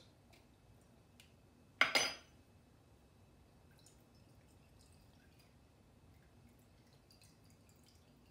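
Salty liquid drawn out of sliced cucumbers draining from a tilted stainless steel bowl, trickling and dripping faintly into a small glass bowl. There is one short, louder clunk about two seconds in.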